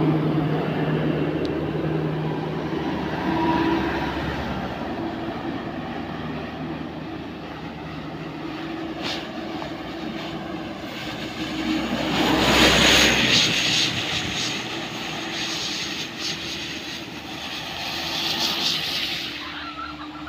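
Diesel engine of a Mitsubishi Colt Diesel truck running steadily under heavy load as it tows an overloaded pickup uphill. About twelve seconds in, a louder rush of an oncoming truck passing on the wet road.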